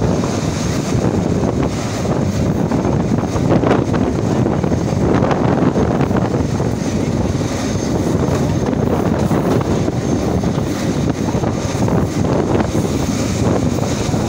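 Passenger train running at speed behind an HGMU-30 diesel locomotive: a steady rumble of the engine and wheels on the track under wind buffeting the microphone.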